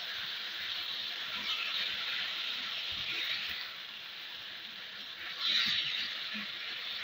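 Minced beef frying in hot oil in a pan: a steady sizzling hiss that swells louder for a moment about five and a half seconds in.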